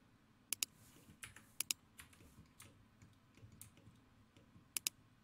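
Faint, sharp clicks of a computer mouse. There are three quick pairs of clicks, about half a second in, about a second and a half in, and near the end, with a few fainter single clicks between them.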